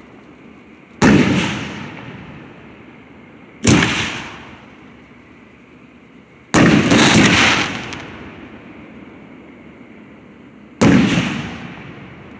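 Aerial fireworks shells bursting: four loud booms, each with an echo that fades over about a second. The third is a quick cluster of several reports.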